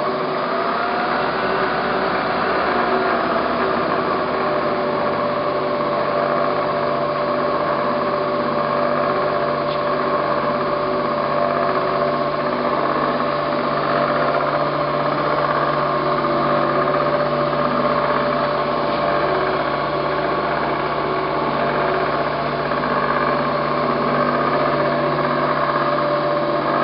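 Spindle head of a Bridgeport Series 1 EZ Trak CNC milling machine running in its low-speed range: a steady hum with several held whining tones. The pitch wavers slightly in the first few seconds, then holds steady. The head runs smoothly, the sound of a machine in good order.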